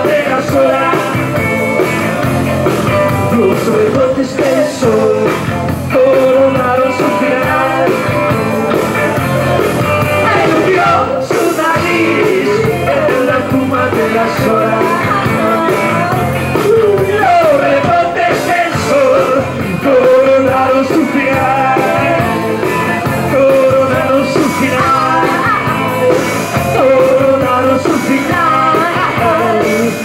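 Live rock band playing a song: electric guitars, bass and drums with singing, heard from among the audience through a camcorder's microphone.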